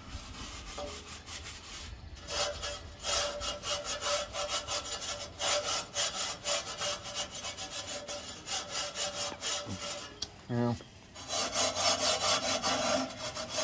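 Gloved hand scrubbing the soapy steel inside of a new offset smoker's firebox, rapid back-and-forth scraping strokes. The scrubbing strips the factory grease off the bare metal before seasoning. There is a brief pause with a short squeak a little after ten seconds in, then the scrubbing resumes.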